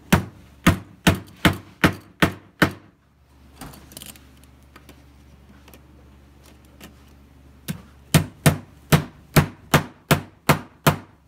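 Soft-faced mallet striking a wooden cabinet panel to knock a joint home: about seven quick, evenly spaced blows, a pause of some five seconds, then about eight more near the end.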